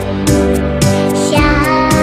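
Chinese pop song playing as dance music, with a steady beat about twice a second.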